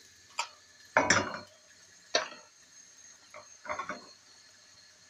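A non-stick frying pan knocking and clattering against a gas hob's grate as a pancake is tossed and flipped in it: a handful of sharp knocks, the loudest and deepest about a second in.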